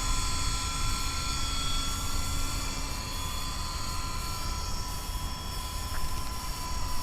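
MJX F45 RC helicopter's motors and rotor running in flight with a steady high whine, easing slightly toward the end, while strong wind buffets the microphone with a low rumble.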